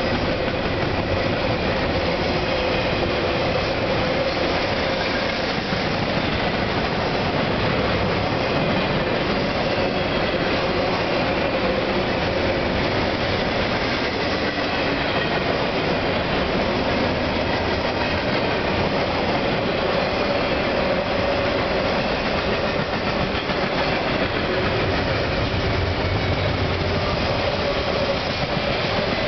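Double-stack intermodal freight cars rolling past close by: a steady rumble and clatter of steel wheels on the rails, with a steady ringing tone running through it.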